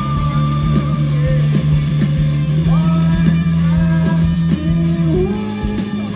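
Live rock band playing: an electric guitar melody over held bass notes and drums.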